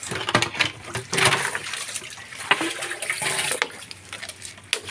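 Water pouring and splashing in short, irregular bursts as a dog is bathed.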